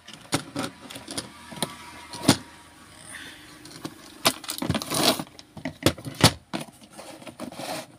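Handling noise on a workbench: a string of irregular sharp clicks and knocks, with a burst of rustling about five seconds in.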